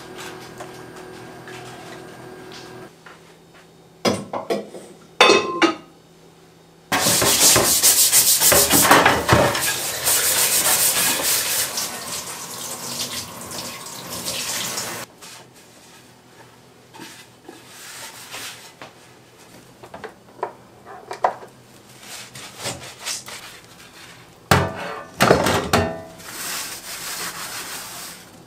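Washing up at a stainless-steel kitchen sink: a few knocks of dishes, then tap water running for about eight seconds, then scattered rubbing, clinks and knocks as items are handled and scrubbed. Near the end a sponge scrubs a stainless-steel mesh colander.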